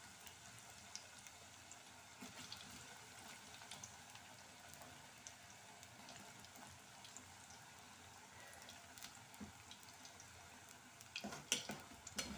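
Raw nendran banana slices frying in hot oil in an aluminium pot: a faint, steady sizzle with small crackles. About eleven seconds in, a slotted spatula starts stirring the slices, with louder clinks and scrapes against the pot.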